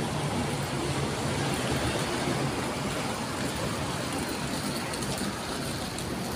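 Steady road traffic noise on a busy city street, with the engine hum of a passing double-decker bus that fades out within the first couple of seconds.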